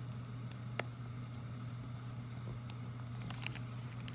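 A few small, sharp clicks of a screwdriver and fingers working the retaining screw of an M.2 drive in a Panasonic Toughbook CF-20 laptop: one about a second in, then a quick cluster near the end, over a steady low hum.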